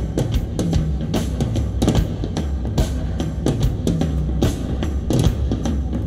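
A rock track with a steady drum beat, guitar and heavy bass, played back through DIY studio monitors and an Infinity SL Micro bandpass subwoofer and picked up by room microphones.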